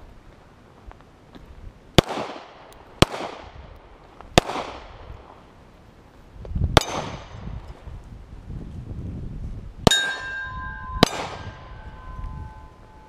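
Six handgun shots at an uneven pace, each followed by a short echo. After the last two, a steel target rings with a clear tone for about a second, the sign of hits on the hanging steel plates.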